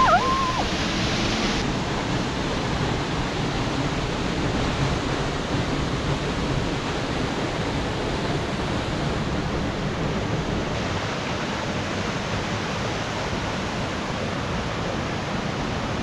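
Steady rush of a waterfall and cascading creek water.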